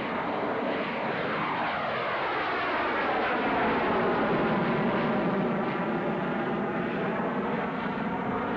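F-14 Tomcat jet fighter's twin engines on a low display pass with afterburners lit: a loud rush of jet noise with tones sweeping downward through it, swelling to its loudest about halfway through as the jet banks past.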